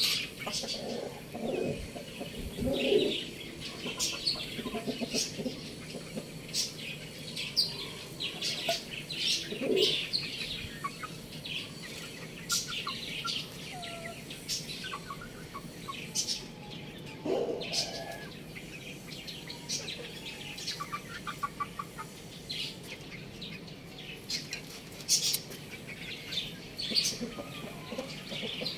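Chickens clucking now and then, over a steady scatter of short, high chirps from small birds.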